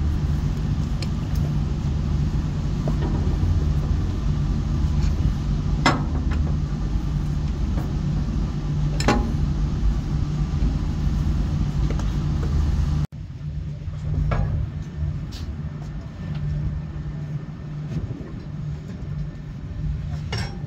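Steady low hum of a ship's machinery running, with a few sharp knocks. About two-thirds through, the hum drops suddenly to a lower level.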